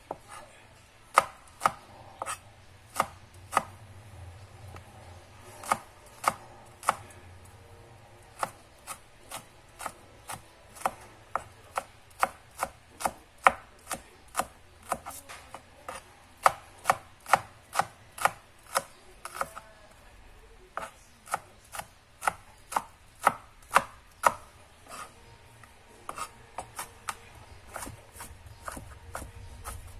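Chef's knife chopping garlic cloves on a plastic cutting board: sharp knocks of the blade hitting the board, about two a second, in uneven runs with short pauses.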